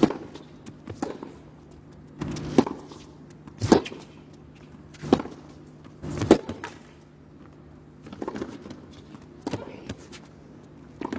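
Tennis rally: a racket strikes the ball about nine times, roughly every second or second and a half, the middle strikes loudest and the last few softer.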